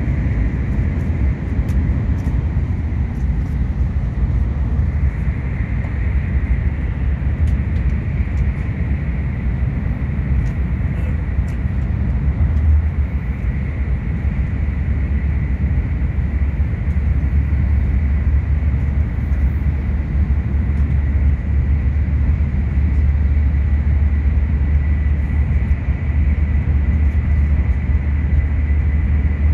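Steady running noise of a Tokaido Shinkansen train heard from inside a passenger car: a deep, even rumble with a faint steady high-pitched whine through it.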